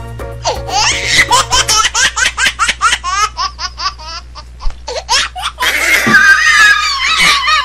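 High-pitched laughter in quick repeated bursts, over background music with a steady low hum.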